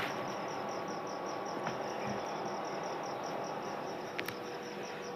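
Insect chirping steadily in an even, high-pitched pulse of about four to five chirps a second, over a background hiss, with a brief click about four seconds in.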